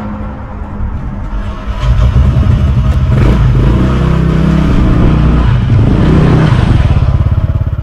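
A motor scooter engine running, rising sharply in loudness about two seconds in and then staying loud and steady.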